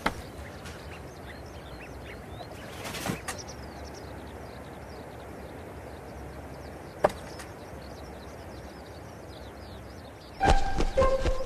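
Outdoor ambience with many birds chirping steadily in the background, a soft thump about three seconds in and a sharp click about seven seconds in. Music starts about ten and a half seconds in.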